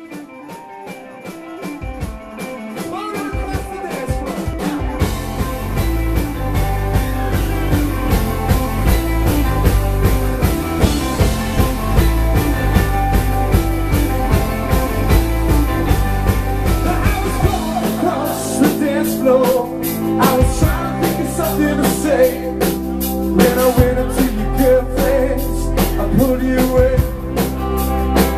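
Live rock band playing on stage: electric guitars, keyboard and drum kit, fading in over the first few seconds and then going steadily with a regular drum beat. The low end drops away briefly about two-thirds of the way in before the full band returns.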